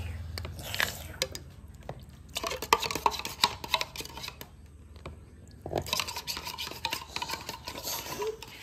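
Utensils clinking and scraping against dishes in quick, irregular light knocks, with a quieter pause a little past the middle.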